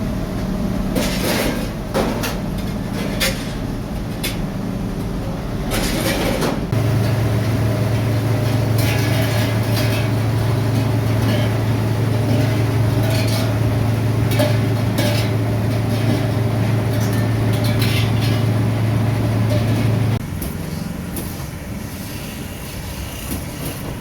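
Metal kettle parts clinking and knocking, and an electric workshop machine that comes on about seven seconds in with a steady low hum, runs for about thirteen seconds and cuts off suddenly.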